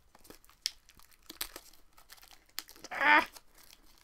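Wrapping on a hardback book crinkling and crackling in small clicks as fingers pick and tug at it to get it open. About three seconds in, a short wavering vocal whine of effort.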